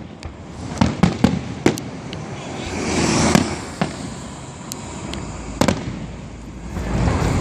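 Fireworks display: a cluster of sharp bangs about a second in and more scattered bangs after, with a swelling hiss around three seconds in and again near the end.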